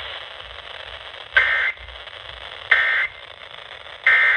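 Three short, buzzy Emergency Alert System (SAME) data bursts about a second and a third apart, over steady radio hiss: the end-of-message code that closes a broadcast weather warning.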